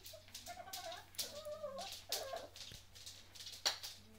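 Belgian Shepherd puppies play-fighting, giving about four short wavering whines and growls in the first half, then a single sharp knock about three and a half seconds in.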